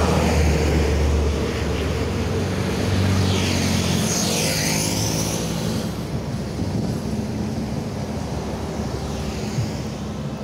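Heavy road vehicle driving past close by: a deep engine rumble at first, then a rushing tyre-and-wind noise that sweeps up and down in pitch as it goes by, easing off toward the end.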